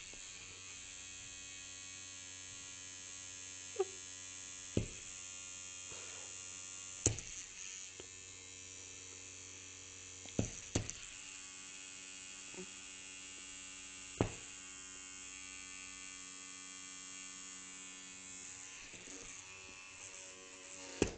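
Battery-powered electric toothbrush buzzing steadily as it vibrates on an upholstered chair arm, with several sharp clicks scattered through the buzz.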